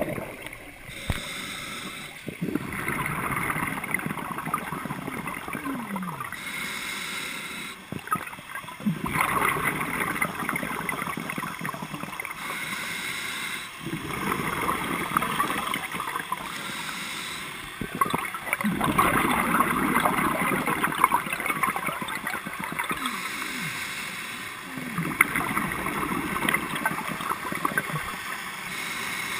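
Scuba regulator breathing heard underwater: short airy inhalation hisses alternating with longer gurgling bursts of exhaled bubbles, about five breath cycles, one every five to six seconds.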